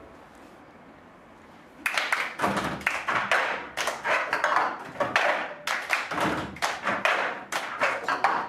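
A group doing a cup rhythm: plastic cups tapped and slapped on wooden tabletops, mixed with hand claps, in a quick steady pattern that starts about two seconds in.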